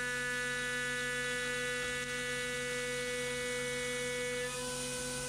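High-frequency CNC spindle at 15,000 RPM driving a 9 mm two-flute solid carbide end mill through aluminium, 10 mm deep at a 1.5 mm width of cut: a steady pitched hum with a stack of overtones. The higher overtones fade about four and a half seconds in while the main tone carries on.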